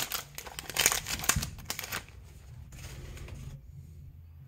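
Plastic wrapper of a trading card pack crinkling and tearing as it is ripped open, a dense crackle that stops about two seconds in.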